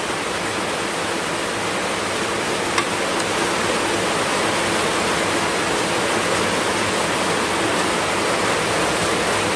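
Heavy rain pouring down in a steady, even rush. One short click about three seconds in.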